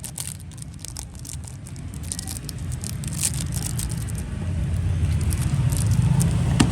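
A motor vehicle's engine rumble growing steadily louder as it comes closer, with scattered light clicks and small rattles over it, densest in the first half.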